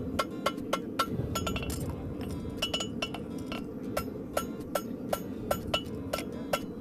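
Farrier's hammer striking a hot steel heartbar horseshoe on an anvil, about three ringing blows a second, as the shoe is shaped.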